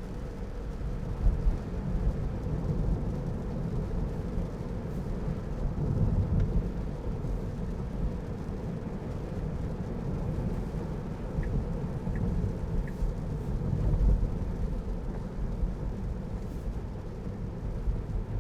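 Road and tyre rumble inside the cabin of a moving Tesla Model 3, an electric car with no engine note, so the steady low rumble from the road is the main sound. A faint steady hum and a few light ticks sit over it around the middle.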